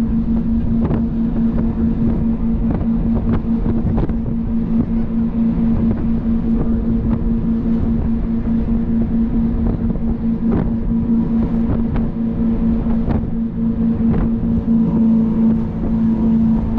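Jet boat's twin 496 cubic inch V8 engines running steadily, a constant drone, with wind buffeting the microphone and a few light knocks.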